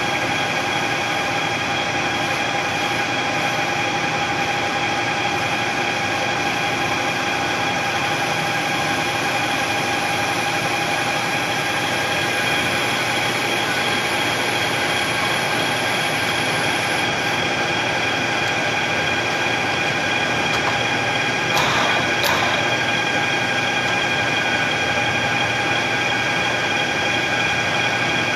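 Machine tool running steadily while cutting metal for a custom shift knob, with a constant high-pitched whine over a steady mechanical noise. Two short clicks come about 21 and 22 seconds in.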